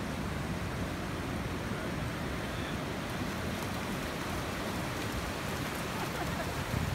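Ocean surf breaking and washing up the shore: a steady hiss with a low rumble under it, swelling slightly near the end.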